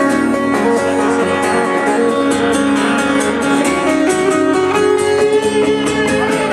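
Live guitar music, strummed in a steady rhythm with sustained chords.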